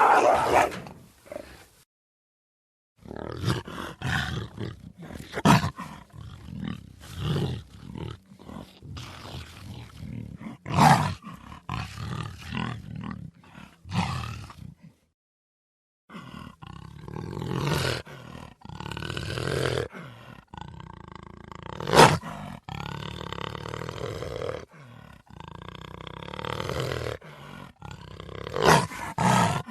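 Big cat roaring in a string of short, repeated calls, broken by two clean cuts to silence where separate recordings are spliced together. The loudest, sharpest call comes about two-thirds of the way in.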